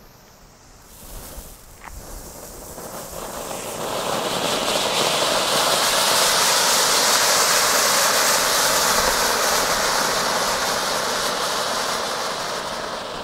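Funke silver tower ground fountain spraying silver sparks with a steady, loud hiss that swells over the first few seconds and eases slightly near the end.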